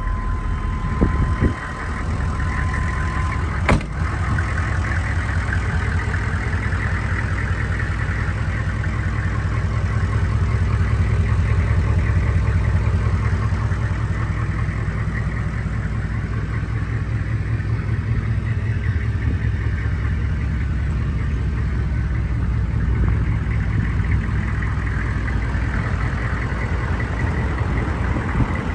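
1999 GMC Sierra dually's 6.5-litre turbo-diesel V8 idling steadily. A steady high tone sounds for the first few seconds, and a single thump comes about four seconds in.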